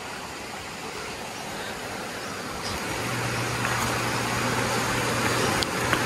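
A motor vehicle's engine running nearby and slowly growing louder, with a steady low hum setting in about halfway through.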